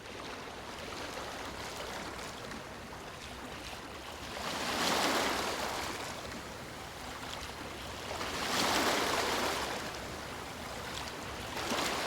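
Waves washing in: a steady rush of water that swells and ebbs twice, about four seconds apart.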